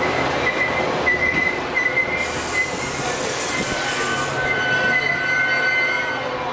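Metra bilevel commuter coaches rolling slowly along a station platform, their steel wheels squealing in thin, high, wavering tones over a low rumble. A burst of hiss runs from about two seconds in to about four and a half seconds in.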